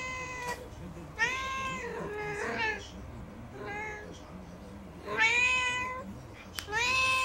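Domestic cats meowing for food: about five drawn-out meows, each up to a second long, two of them overlapping.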